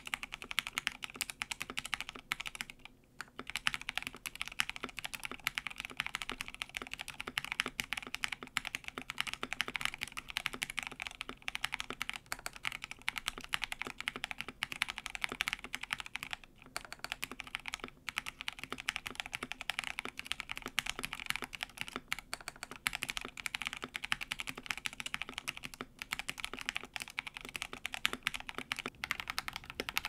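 Rapid, continuous typing on an Ikki68 Aurora mechanical keyboard fitted with Cow linear switches with UHMWPE stems, a silicone-dampened case and PBT keycaps. The keystrokes pause briefly about three seconds in and again around the middle.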